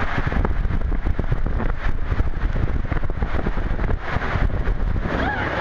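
Rumbling rush of water and a body sliding through an enclosed plastic tube water slide, with wind-like buffeting on the microphone.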